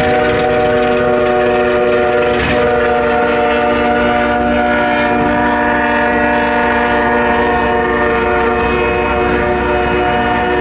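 Norfolk Southern freight locomotive's air horn sounding one long unbroken chord as the train passes, over the low rumble of the locomotives and cars on the rails.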